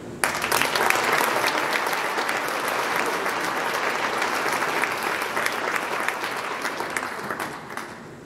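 Audience applauding for a graduate: many hands clapping, starting suddenly and dying away near the end.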